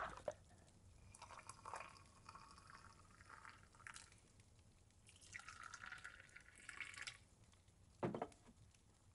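Faint liquid sounds of Tibetan butter tea sloshing and being poured into cups, with a brief, louder soft knock near the end.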